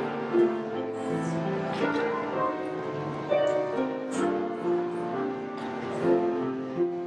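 Piano music: held chords under a melody that moves from note to note.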